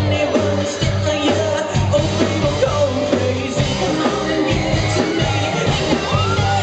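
A live rock band playing with a male lead singer singing into a microphone over drums and bass keeping a steady beat, heard loud and full from the audience.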